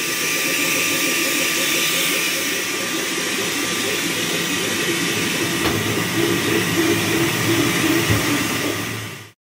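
Flsun T1 Pro delta 3D printer running at full print speed with its glass door closed: a steady rush of its cooling fans, with motor tones that waver in pitch as the print head moves. The sound cuts off suddenly near the end.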